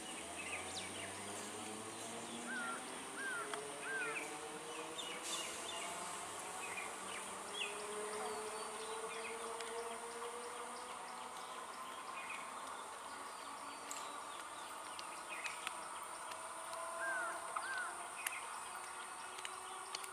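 Quiet open-air ambience: a steady high-pitched insect drone with small bird chirps, a quick run of three or four a few seconds in and two more near the end, over a faint low wavering hum.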